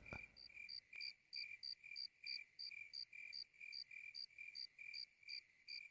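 Faint cricket chirping: a high, even pulse about three times a second.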